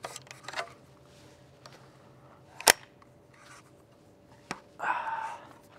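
Metal clicks and one loud snap about two and a half seconds in as the steel underfolder stock of a Pioneer Arms AK is worked by hand and latches, with a short metallic scrape near the end. The stock locks up tight, with no rattle.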